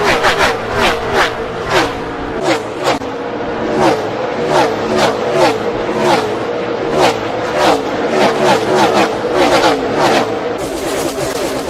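A pack of Gen 6 NASCAR stock cars with V8 engines at full throttle, passing close by one after another in quick succession. Each car's engine note drops in pitch as it goes past.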